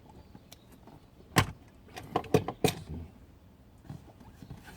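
Handling noises: a single sharp knock, then a quick run of three or four clicks and knocks about a second later, like small hard objects being picked up and set down.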